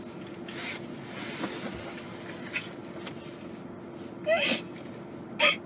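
A young woman crying: sharp sobbing breaths and sniffles, with a short wavering sob about four seconds in.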